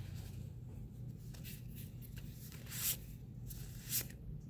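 Trading cards being handled and slid past one another, giving three short swishes, the loudest near the middle, over a low steady hum.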